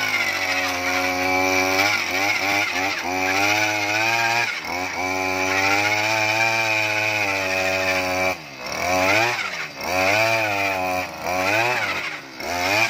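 Zongshen G45 petrol earth auger's two-stroke engine running hard as the auger bores into the soil. The revs hold fairly steady at first, then drop sharply and pick up again about four times in the last few seconds as the throttle is eased and reopened.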